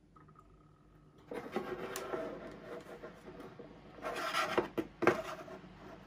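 A plastic 24-volt case fan and its crocodile-clip leads being handled and moved about on a desk: rubbing and scraping, with a few sharp knocks in the last two seconds as the fan is set down.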